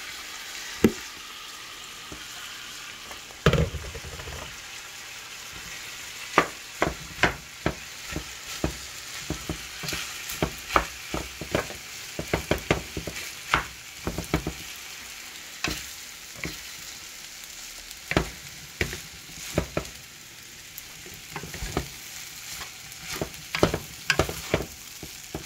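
Shrimp, rice and mixed vegetables sizzling in a frying pan while being stirred and turned with a wooden spoon. There is a steady sizzle, with many sharp knocks and scrapes of the spoon against the pan, coming in quick clusters after the first few seconds.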